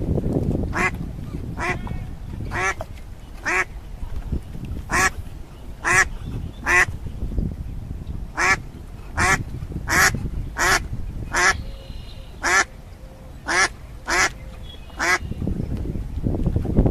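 A duck quacking repeatedly: about sixteen short, single quacks roughly a second apart, over a steady low rumble.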